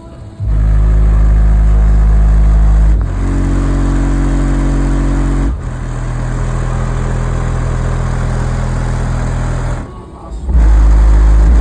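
10-inch car subwoofers in a new box playing deep, loud bass notes. Each note holds for a few seconds before jumping to another pitch, with a short drop-out near the end.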